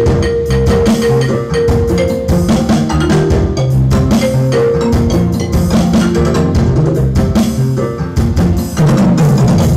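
Percussive music with strong bass notes and a steady beat, played loud through two pairs of BFaudio Pro speakers (CSA 2000W and UK21) driven by a VA4850i four-channel power amplifier in a sound test.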